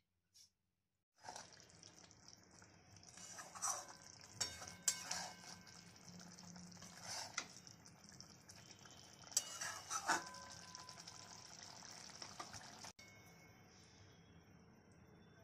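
Kofta curry gravy simmering with a soft steady sizzle in a metal kadai, while a spatula stirs it, scraping and clinking against the pan a handful of times from about three to ten seconds in.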